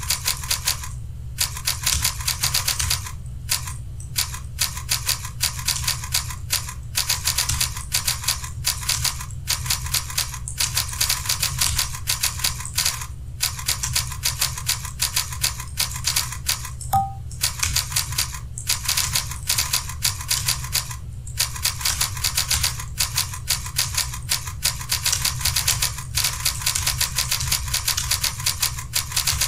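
Computer keyboard typing: fast, steady keystrokes at about 50 words a minute, with a few short pauses between runs.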